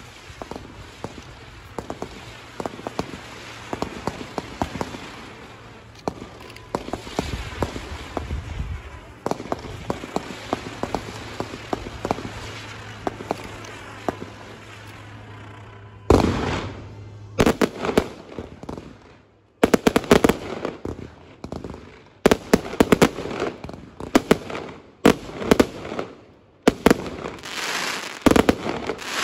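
Aerial fireworks display: steady crackling and popping from comet and crackle stars, then, from about halfway through, a fast run of loud sharp bangs, several a second, with crackling between them.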